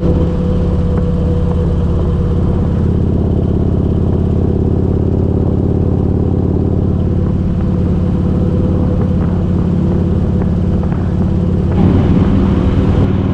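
A steady, engine-like hum that gets briefly louder near the end.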